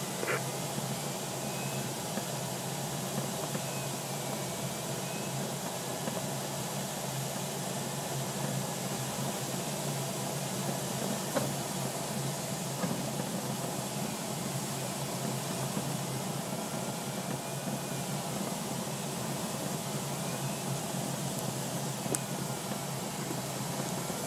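Steady rush of airflow in a DG-505 two-seat glider's cockpit in flight, with a faint electronic tone sliding up and down in pitch, as from the audio variometer.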